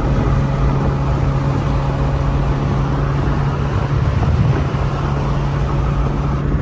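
A car driving at a steady speed: a constant low engine drone under road and wind noise.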